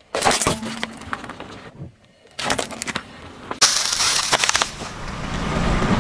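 Objects crushed under a car tyre in short, cut-together takes: two bursts of crackling and crunching, which match a plastic tub giving way, then green floral-foam bricks crunching and cracking. After about the fifth second a steady rumble and hiss of the car rolling on asphalt take over.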